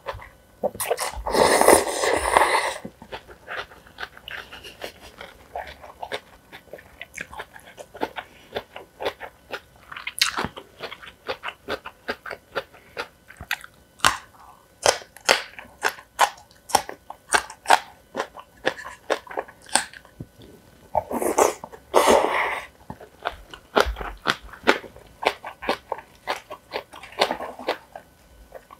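Close-miked eating of spicy cold noodles and green onion kimchi: steady chewing and crunching in quick clicks, with two louder, longer slurping stretches of about a second each, one near the start and one about two-thirds through.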